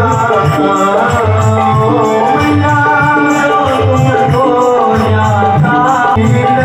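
Hindu aarti hymn: voices singing a wavering devotional melody over a steady rhythm of percussion, loud and continuous.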